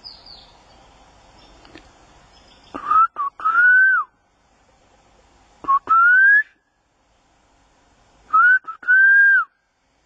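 Three loud whistles about three seconds apart, each a short note followed by a longer rising glide.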